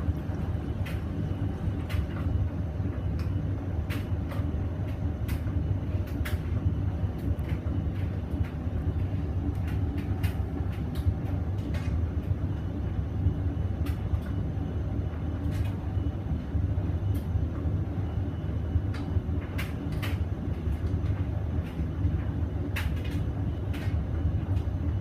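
Hoover VisionDynamic washing machine running at the start of its final rinse: a steady low hum, with scattered light clicks and knocks throughout.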